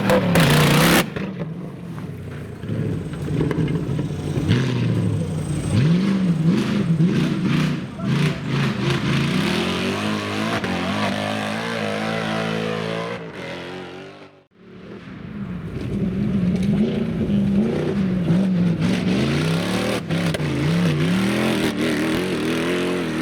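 Off-road 4x4 engine revving again and again, its pitch rising and falling as it works under load. The sound drops out abruptly about fourteen seconds in, then comes back.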